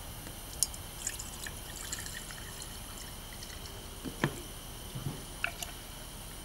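Clear degreasing solvent poured from a plastic bottle into an empty glass jar, trickling and splashing, with a few light ticks and short knocks.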